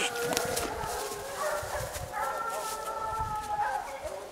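Hunting hounds baying in long, overlapping drawn-out cries, as a pack does when it is on a wild boar's trail.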